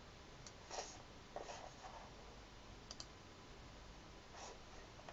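Faint clicks of a computer mouse, with a quick double click about three seconds in, among a few soft brushing sounds.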